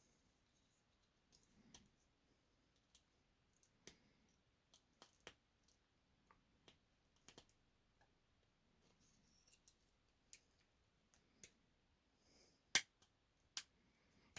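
Faint, irregular clicks and snaps of small printed support bits being pried and pushed off 3D-printed model tank parts with a small hand tool, with two louder snaps near the end.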